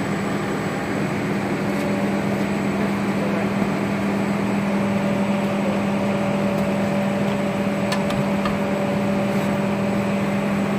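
Steady machine hum with a strong low drone, from a running motor or engine. A few faint clicks about eight seconds in.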